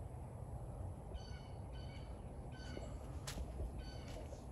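A bird calling over and over in short calls, about one a second, over a low steady outdoor rumble.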